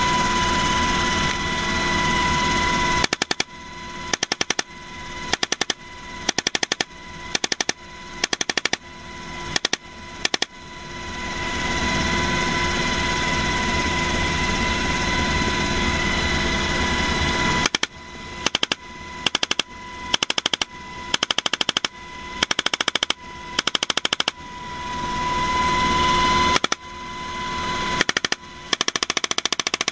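Helicopter door-mounted machine gun firing many short bursts in quick succession, broken by a pause of several seconds about ten seconds in and a shorter one near the end. Between bursts the helicopter's steady high whine carries on.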